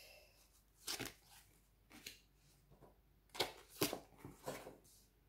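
Darkwood Tarot cards being drawn one by one off the deck and laid down on a cloth-covered table: soft, brief card slides and flicks, one about a second in and a cluster of several between three and a half and four and a half seconds.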